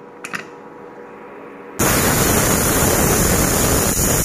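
Two small clicks as the weight whistle is set on the vent of a Prestige Popular aluminium pressure cooker. About two seconds in, the cooker whistles: a sudden, loud, steady rush of steam escaping under the lifted weight, the sign that it has come up to pressure.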